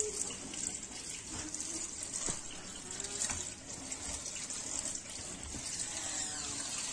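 Tap water running steadily into a sink over bathua (lamb's quarters) greens being rinsed in a strainer, with a few faint handling ticks.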